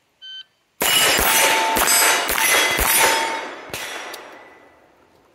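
Shot timer beep, then a pistol-caliber carbine fired in a fast string of shots at steel plates, the plates ringing on hits. The last shot comes just under four seconds in and the ringing fades away.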